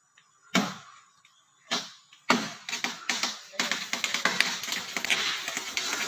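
Axe chopping into wood: two single blows about a second apart, then from about two seconds in a busier run of rapid knocks and clatter.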